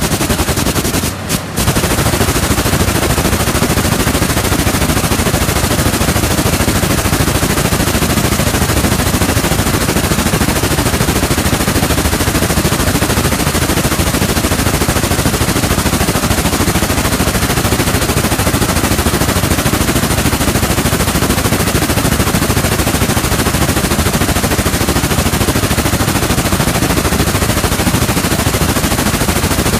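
High-speed rapier loom with a jacquard head weaving at full speed: a loud, continuous, rapid mechanical clatter of the beating and rapier strokes. It cuts out twice very briefly about a second in.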